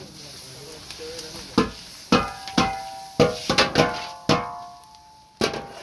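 Large perforated metal colander knocked repeatedly against the rim of a big cooking cauldron to shake off rice: about nine sharp metal clangs, each ringing briefly, over some four seconds.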